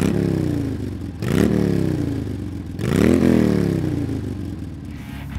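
An engine revved three times, each a quick rise in pitch followed by a slow falling-off.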